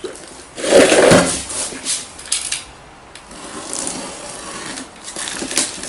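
A package being unwrapped and opened by hand, with rubbing and scraping of the packaging. The loudest scrape comes about a second in, followed by a few short knocks and then softer rustling and handling.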